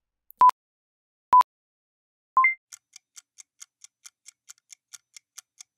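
Countdown sound effect: three short electronic beeps about a second apart, the last stepping up to a higher pitch like a race-start signal. It is followed by a stopwatch ticking sound effect, about four to five ticks a second.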